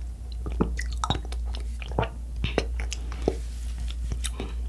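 Close-miked mouth sounds of drinking coconut water through a straw from a young coconut: soft irregular clicks of the lips and tongue and swallows, scattered every fraction of a second.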